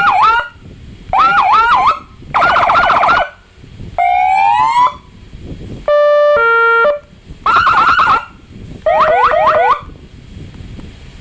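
AS 940 electronic siren horn box sounding seven short bursts of about a second each, switching between tones: fast warbling yelps, a rising wail, and a steady two-note hi-lo horn.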